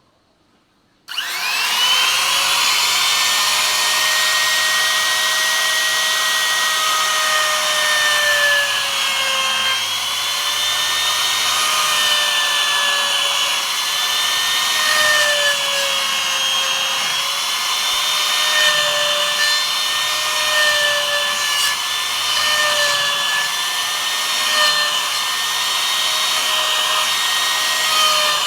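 Trim router with a straight bit switched on about a second in, spinning up with a rising whine, then running steadily at high speed while cutting a mortise in wood, its pitch dipping and recovering as the bit takes load.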